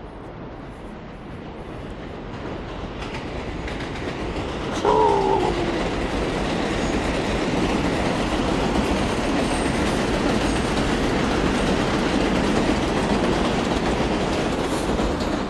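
Train passing on the rails, growing louder over the first few seconds and then running steady and loud. A short falling tone sounds about five seconds in.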